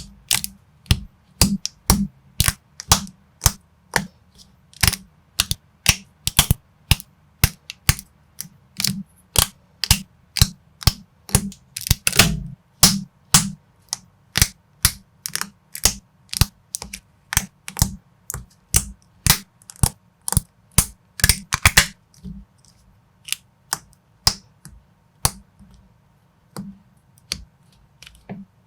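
Plastic building bricks clicking as they are pressed and snapped together, sharp clicks about two a second. Twice there is a brief rattling shuffle, about halfway through and about three quarters through, and the clicks thin out near the end.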